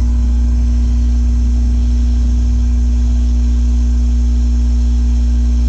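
Metcal hot-air rework tool running: a steady, unbroken low hum with a faint hiss of air above it.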